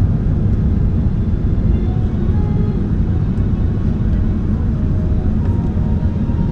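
Airliner noise during landing: a steady, loud low rumble with no distinct knocks or changes.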